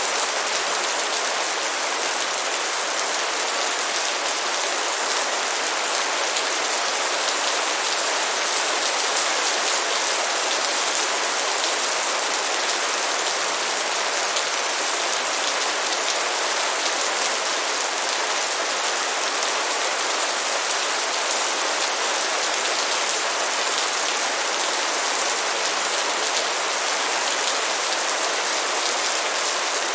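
Light rain falling steadily: a dense, even hiss of drops with fine ticks from individual drops.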